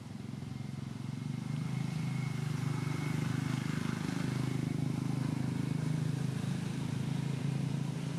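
An engine running, with a steady low hum that grows louder over the first two seconds and then holds.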